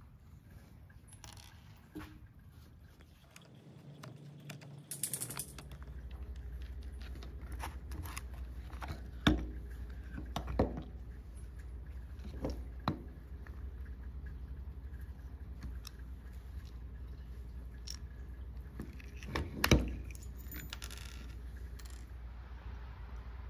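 Handling sounds from taking apart a DeWalt DW987 cordless drill on a wooden bench: the plastic housing and the gearbox with chuck clicking, scraping and knocking as they are worked apart and set down. There are a few sharper knocks, the loudest about nine and twenty seconds in, over a low steady hum that comes in about five seconds in.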